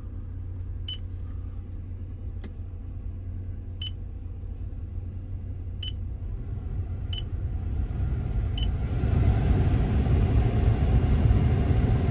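Five short beeps from the dashboard touchscreen as the fan speed is stepped up. Meanwhile the refitted original Toyota heater/AC blower motor spins up: a rushing of air that rises from about six seconds in and runs loud and steady from about nine seconds, with no bearing squeak. The engine idles low underneath.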